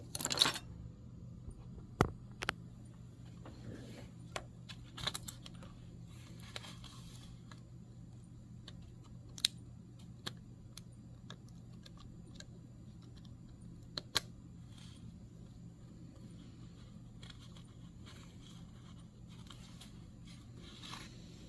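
Scattered light clicks and taps of small parts being handled as a tablet's circuit board is fitted back into its case, over a faint steady low hum.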